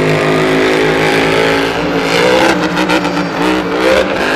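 Grave Digger monster truck's supercharged V8 engine running loud, steady at first, then revving up and down in waves from about halfway through as the truck rears up.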